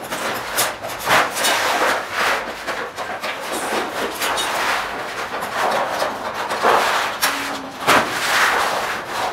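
Hand shears cutting thin sheet steel: irregular crunching snips, with the loose sheet scraping and flexing.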